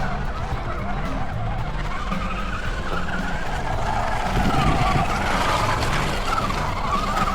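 Electric motor and drivetrain of an MN Model MN222 1/10-scale RC crawler whining as it drives, the pitch rising and falling with the throttle.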